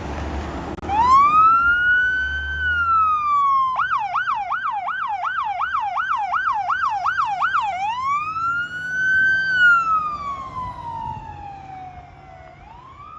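Fire department battalion chief vehicle's electronic siren. It sounds a slow rising and falling wail, switches to a fast yelp of about three cycles a second for about four seconds, then goes back to the slow wail.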